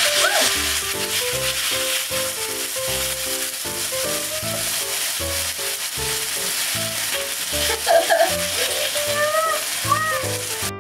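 Canned tomatoes sizzling hard in a hot frying pan of oil and sautéed vegetables, stirred with chopsticks near the end. Light background music with short piano-like notes plays underneath.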